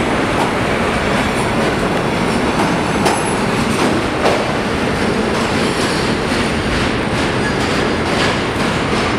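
Vintage subway train of BMT Triplex D-Type cars pulling out of the station into the tunnel: a steady, loud running noise from the rails, with scattered sharp clicks.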